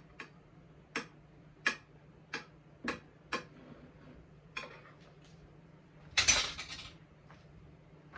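Kitchen utensils clinking against dishes: a string of sharp clinks about every half second, then a louder, longer clatter about six seconds in.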